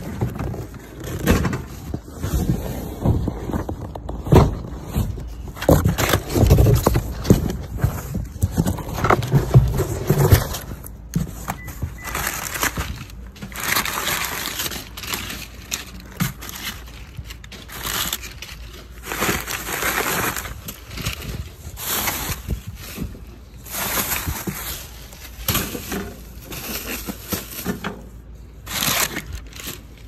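Brown packing paper and plastic wrap rustling and crinkling as a boxed evaporator coil is unpacked, with irregular handling thumps in the first third.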